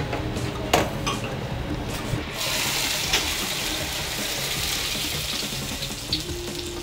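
Fava beans flash-frying in a wok of hot oil, with a ladle knocking sharply against the iron wok about a second in. From about two and a half seconds a steady sizzling rush as the hot oil is poured out of the wok through a perforated strainer.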